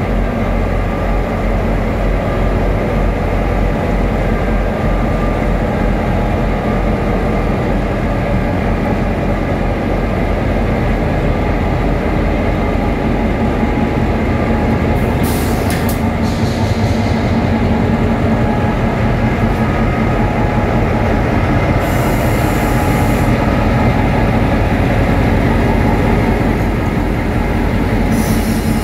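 Two Queensland Rail diesel-electric locomotives, 2414 and 1738, running under power as they pull a passenger train away, a loud steady engine drone with a low hum. Brief high hisses break in about halfway through, again a few seconds later, and near the end.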